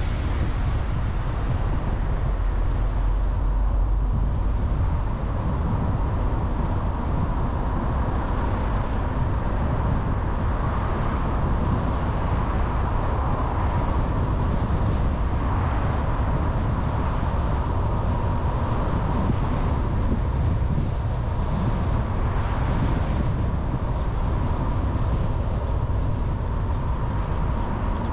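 Steady driving noise of a car on the road: an even rumble of engine and tyres at a constant level, with no sudden events.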